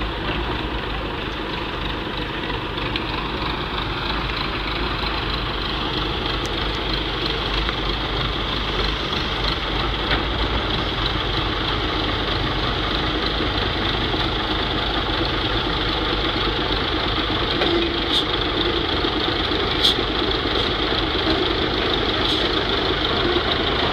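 Diesel engine of an old concrete mixer truck running steadily at idle with a rough, knocking note, slowly getting a little louder. A few short sharp clicks come through near the end.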